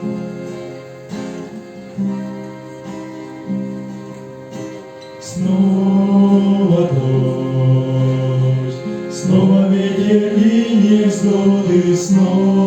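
Instrumental intro of a gentle song: plucked acoustic guitar notes at first, then a louder, fuller passage with a long held melody line coming in about five seconds in.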